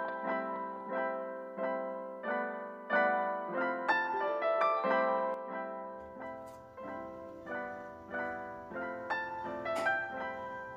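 Background piano music: a gentle melody of single struck notes, each fading away, at an even pace.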